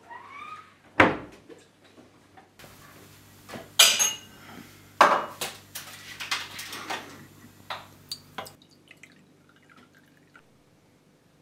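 A kitchen cupboard door squeaks and bumps shut, then a drinking glass and dishes clink and knock on the countertop several times. Near the end, faint water pours from a plastic bottle into the glass.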